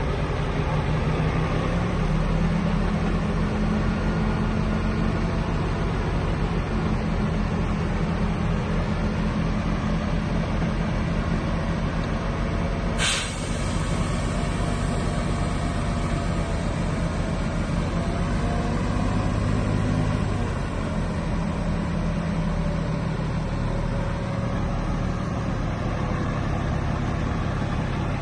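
Heavy diesel engine of earthmoving machinery running steadily under load. Its note rises about two seconds in and eases off about twenty seconds in. A brief sharp hiss cuts in near the middle.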